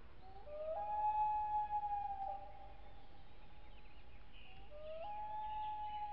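Music: a solo melody line that slides up into a long held note soon after the start, and again about five seconds in.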